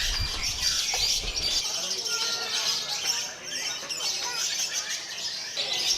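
Many caged songbirds singing at once in a dense chorus of high, rapid chirps and trills.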